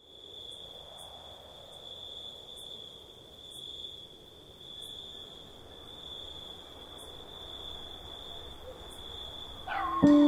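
Crickets chirring in one steady, high, unbroken trill over faint outdoor ambience. Near the end a low chime strikes loudly and keeps ringing.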